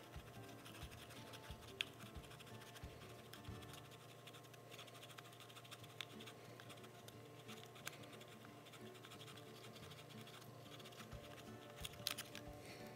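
Faint scratching with a few small clicks as metal tweezers and a cotton swab work at old tape, lifting it off a cardboard box.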